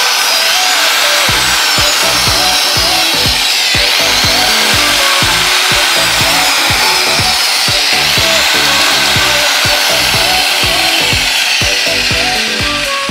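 Angle grinder motor running continuously on a test run, checking whether it cuts out when tilted. Its open housing exposes the switch and wiring. Background music with a steady beat plays over it, and the sound fades near the end.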